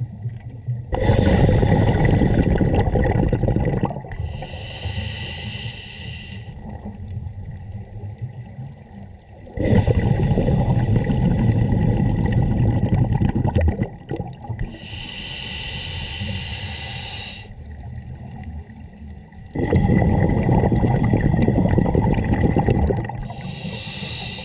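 Scuba diver breathing underwater through a regulator: three long rumbling bursts of exhaled bubbles, each followed by a shorter hissing inhalation, in a slow cycle about every ten seconds. A steady faint high tone runs underneath.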